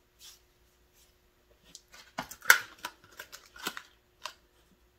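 7.5-inch multi-purpose shears being handled: a quick run of clicks and rustles, with the sharpest click about halfway through.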